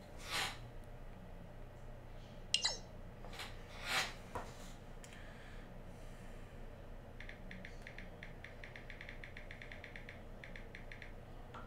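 Quiet room with a few short breathy or rustling noises in the first half, then about four seconds of rapid, evenly spaced light clicks.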